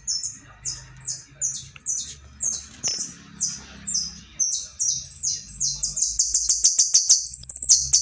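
Small yellow cage bird singing: a run of short, high, down-slurred notes, two or three a second, that quicken into a fast trill in the last couple of seconds.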